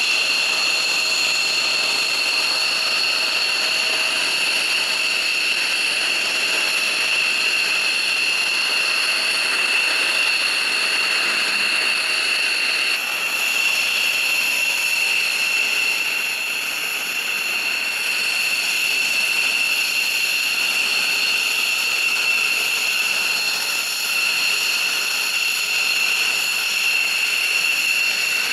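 Military fighter jet engines running at ground idle on the ramp: a steady high-pitched turbine whine over a rushing noise. The sound changes slightly about halfway through.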